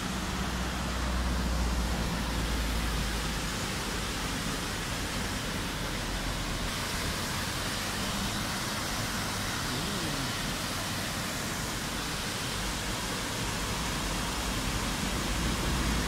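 Water pouring over a stone weir: a steady rushing hiss, with a low rumble underneath in the first few seconds and again near the end.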